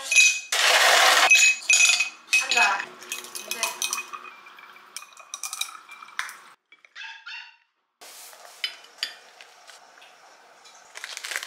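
Ice cubes tumbling into tall glasses, then a run of sharp clinks with a ringing glass tone as the ice settles, and water poured over the ice. About 8 s in this changes to quieter clicks and rustling, with a louder cluster of strokes near the end, as bread is handled and cut with kitchen scissors.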